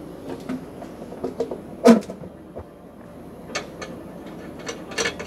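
Scattered plastic knocks and clicks as the lid is fitted and secured on a tumbler bowl of ceramic media, with one louder knock about two seconds in. The tumbler itself is not yet running.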